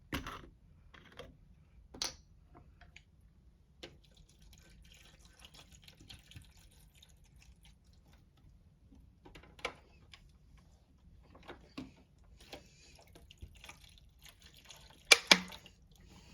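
Water poured from a bottle into a humidifier's water tank, a faint trickle and drip, broken by scattered clicks and knocks of handling; the loudest is a pair of sharp clicks near the end.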